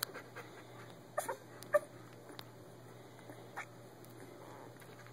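Newborn Old English Sheepdog puppies squeaking faintly, with a few brief high squeaks about a second in, just after, and again past the three-second mark.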